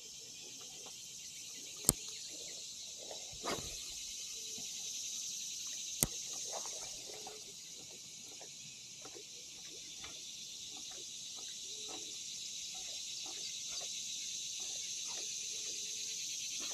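Steady high-pitched chorus of insects such as crickets, with two sharp clicks about two and six seconds in.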